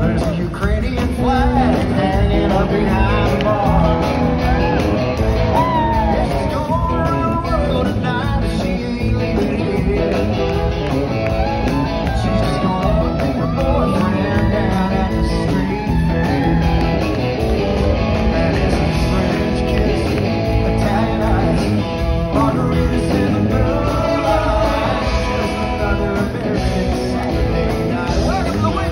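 Live country band playing loud and steady. A male lead vocal is sung over a Telecaster-style electric guitar, drums and keyboards.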